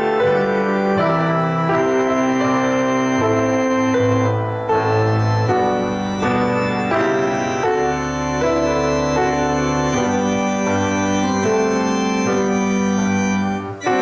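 Organ music: slow, sustained chords over held low bass notes, changing every second or so.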